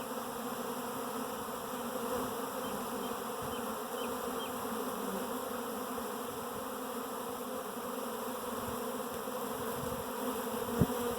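A honeybee swarm buzzing as a steady, dense hum, the massed wingbeats of thousands of bees flying around the branch where their queen has landed to rest after leaving the hive.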